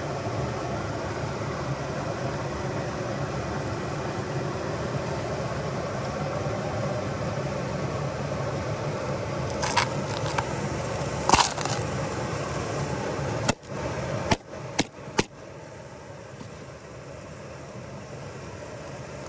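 Steady rush of water spilling over a small stone-dam waterfall into a creek pool. A few sharp clicks and knocks come in the second half, after which the rushing is quieter.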